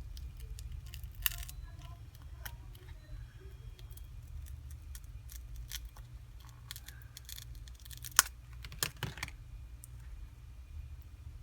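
Light clicks, taps and scrapes of small repair tools handling a phone's parts, with a sharp click about eight seconds in and a few quick rustles just after, over a steady low hum.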